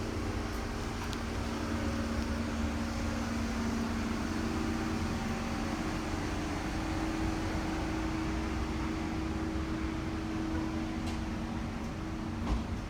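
Steady mechanical hum with two constant low tones over a broad rushing noise, and a single brief knock near the end.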